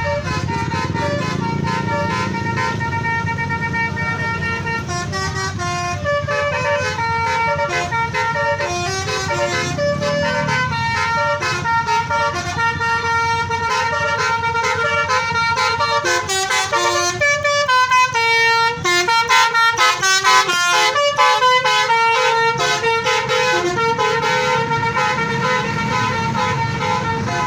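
Bus's 'telolet' multi-tone musical horn playing a quick tune of short, changing notes, with an engine running underneath.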